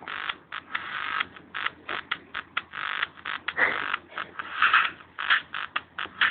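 Electro dance music playing for Tecktonik dancing, thin and without bass, chopped into rapid stuttering pulses a few times a second.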